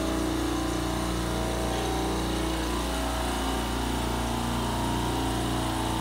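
Steady drone of a supermarket refrigeration compressor rack running, a constant machine hum with several held tones.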